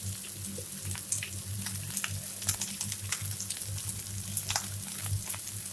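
Chopped onion, green chilli, curry leaves and dried red chillies frying in oil in a kadai: a soft steady sizzle with scattered small crackles.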